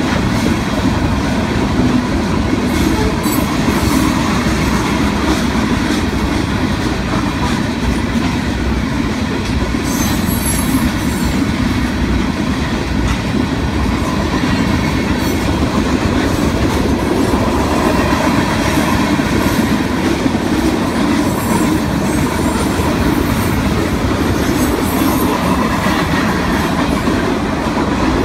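Freight cars of a mixed freight train rolling past at speed: a steady rumble and clatter of steel wheels on rail, with a brief faint high wheel squeal about ten seconds in.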